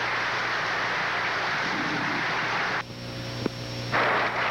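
Audience applauding, a dense steady wash of clapping that drops out for about a second shortly before the end, with a single click in the gap.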